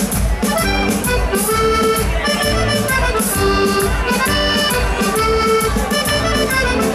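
Organetto (diatonic button accordion) playing a tune over a steady beat with a bass line from the keyboard accompaniment.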